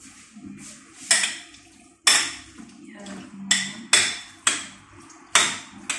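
A utensil clinking against a glass mixing bowl while chicken pieces are stirred, about seven sharp clinks at uneven intervals.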